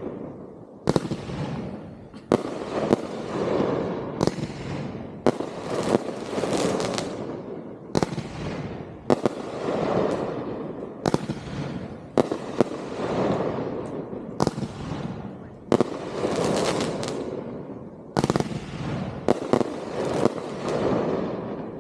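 Consumer aerial fireworks going off in quick succession: a sharp bang about every second or so, each followed by a trailing rumble and crackle.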